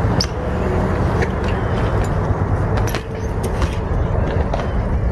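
BMX bike riding on skatepark concrete: a steady rolling rumble of the tyres, with a sharp clack just after the start as the bike lands a hop and a few lighter knocks as it rides away.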